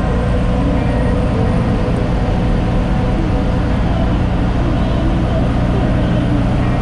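Cummins ISX diesel engine of a Kenworth T800 tractor-trailer running steadily under way, heard from inside the cab as a low, even drone.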